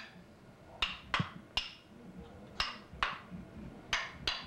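Child tapping a small toy with a toy mallet: seven sharp taps at an uneven pace, each with a brief bright ring.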